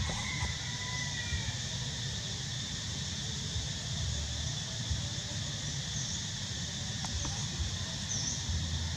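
Steady chorus of insects, with a low rumble underneath. A faint, thin squeal sounds in the first second or so.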